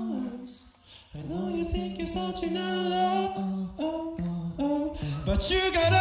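Live tag-team beatboxing: held sung notes that step between pitches, over sharp percussive mouth sounds. The notes break off briefly about a second in.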